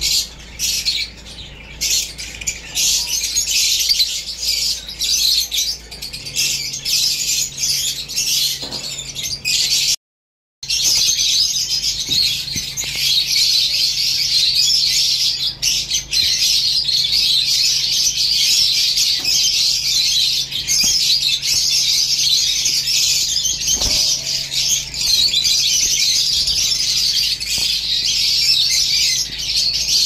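Caged lovebirds chattering and squawking, a dense, unbroken high-pitched din of many birds at once. It drops out briefly about ten seconds in.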